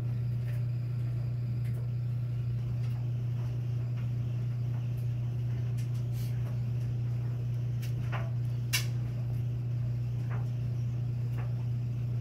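A steady low hum, with scattered faint clicks and taps and one sharper click near nine seconds in.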